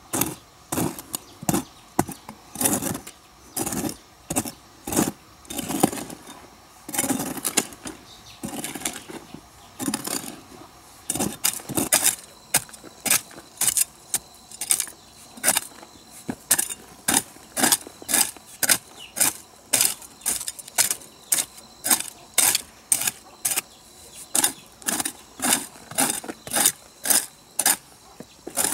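A hand tool striking over and over: about one blow a second at first, then quickening to a steady, crisp rhythm of about two strikes a second from around halfway.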